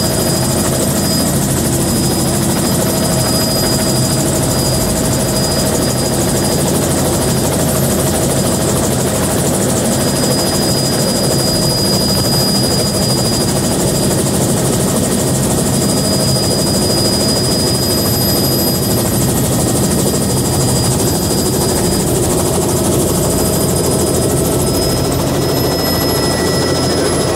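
Bell 206B3 JetRanger helicopter running on the ground, heard from inside the doorless cabin: a steady loud rotor wash and turbine whine from its Allison 250 turboshaft. Near the end the highest whine slides slightly lower in pitch.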